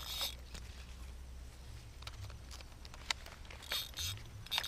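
Handling noise close to the microphone: scattered light clicks and a few short rustles, the loudest near the start and again near the end.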